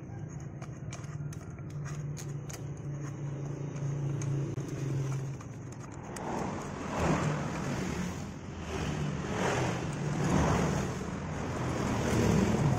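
A thread tap being worked back and forth by hand in a damaged exhaust-mount bolt hole, chasing the worn threads. It makes rough metal scraping strokes about once a second from about halfway through, over a low steady hum with faint clicks in the first half.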